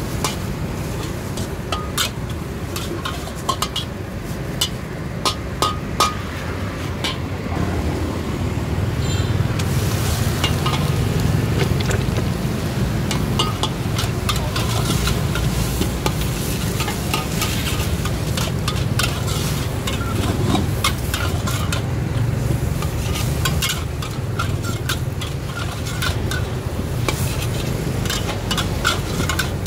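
A metal spatula scraping and clanking against a steel wok as greens and wide flat rice noodles are stir-fried and sizzle in the hot oil. There are many sharp scrapes and clinks throughout, and a low steady rumble underneath grows stronger from about eight seconds in.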